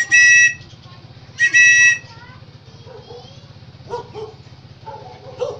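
Orange plastic whistle blown twice: two loud, shrill, steady-pitched blasts of about half a second each. A dog then barks in reply to the whistle during the second half.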